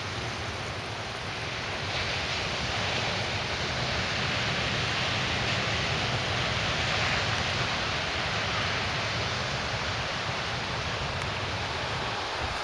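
Ocean surf on the shore, a steady rushing noise with no breaks, over a low wind rumble on the microphone.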